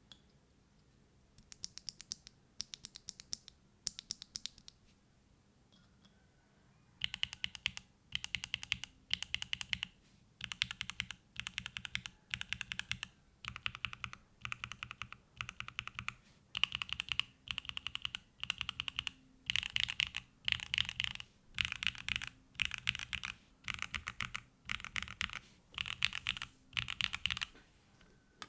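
Typing on a QK65 V2 mechanical keyboard: hand-lubed Gateron Box Pink switches in a gasket-mounted carbon fibre plate, with GMK keycaps. A few short groups of keystrokes come first, then after a pause of a couple of seconds steady typing in quick bursts a little over a second apart.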